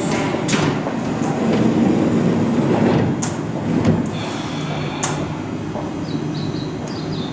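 Sliding passenger doors of a stopped Keihan train closing, with a sharp knock as they shut just before four seconds in. Under it is the steady hum of the standing train.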